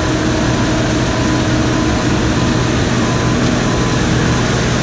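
Combine harvester running steadily: an even, loud machine drone with a few faint steady tones over it.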